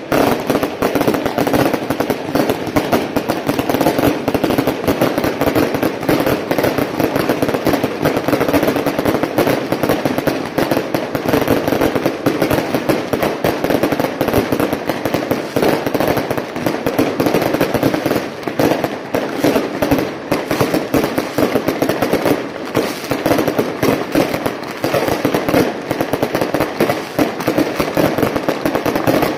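Strings of firecrackers going off in a dense, unbroken crackle of rapid bangs that never lets up.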